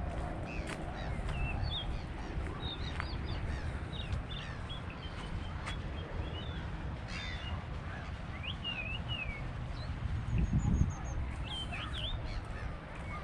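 Several birds chirping and calling in many short, quick notes over a steady low rumble. A brief louder low rumble comes about ten seconds in.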